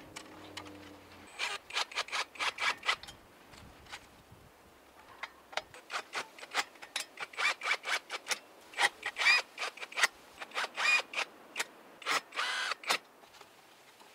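Runs of quick metallic clicks and scraping as a steel mounting bracket is fastened to a palm trunk, with a brief squeak near the end.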